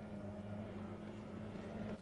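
Outboard engine of a racing hydroplane running at speed, heard as a steady drone.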